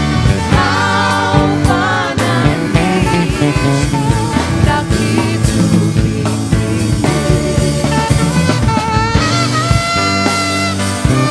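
Live gospel worship band playing between sung lines, with electric guitar, keyboard, bass and drum kit, and a held melody line near the end.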